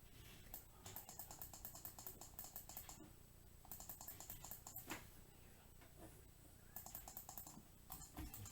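Faint typing on a computer keyboard: three runs of quick keystrokes with short pauses between them.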